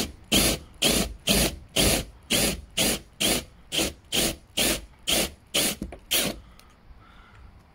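Drill-driven 22 mm hole saw cutting through a camper van's outer skin, heard as regular bursts about two a second that stop about six seconds in as the saw goes through.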